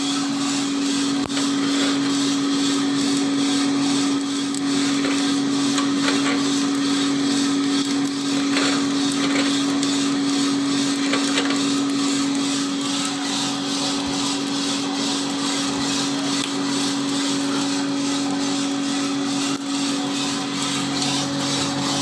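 A 1 kg-capacity roasting machine running with a steady motor hum over a constant whirring noise.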